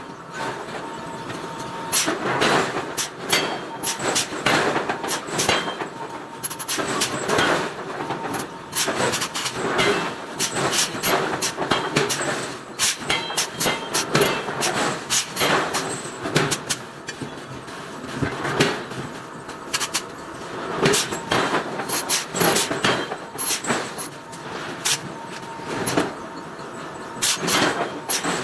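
Irregular sharp metal clanks and knocks, several a second in clusters, over a faint steady machine tone: hot iron being forged and worked.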